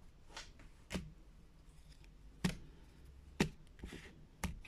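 Tarot deck handled over a table: four sharp clicks and taps of the cards, with softer rustles of the cards between.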